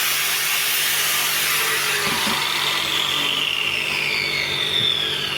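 Freshly reassembled angle grinder on a test run. Its motor gives a loud, steady high whine that slowly drops in pitch.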